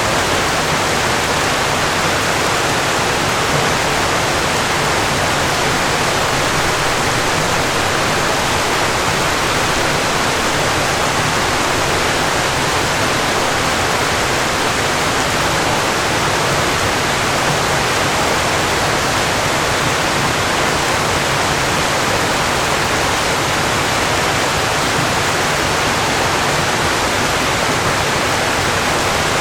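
Falling water, as of a waterfall: a steady, even rush with no breaks or changes.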